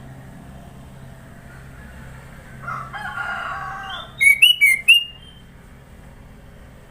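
A kutilang (sooty-headed bulbul) gives four sharp, loud chirps in quick succession, each sweeping in pitch. Just before them a rooster crows once in the background.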